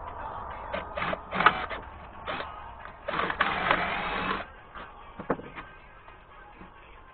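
Cordless drill whirring in several short trigger bursts, then one longer run of about a second and a half, as the bit works into the weathered wooden top of a cable spool table.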